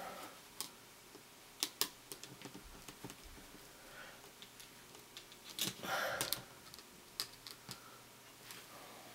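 Scattered light clicks and taps of small parts being handled: tiny screws and a small screwdriver working the screws into the side mounts of a replacement laptop LCD panel, snugged rather than tightened. A brief rustle or scrape about six seconds in.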